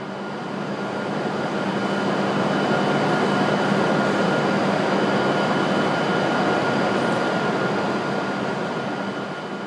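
E7/W7-series Shinkansen train running past along the platform. Its running noise swells to a peak mid-way and eases off near the end, over a steady hum and a higher steady whine.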